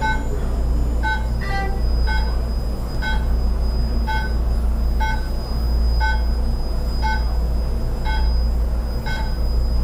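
A powered therapy device running with a steady low hum, and a short electronic beep about once a second. A few quick falling tones sound about a second and a half in.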